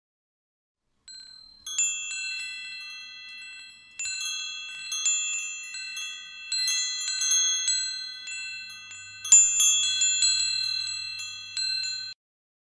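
Wind chimes ringing, struck at irregular moments so several high tones sustain and overlap, then cutting off suddenly near the end.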